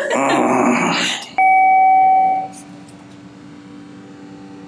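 A single loud electronic chime, a bell-like ding, strikes about a second and a half in and fades over about a second, leaving a faint lingering tone.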